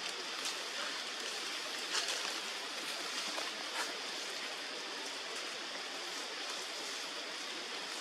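Steady, even rushing outdoor background noise with a few faint sharp clicks.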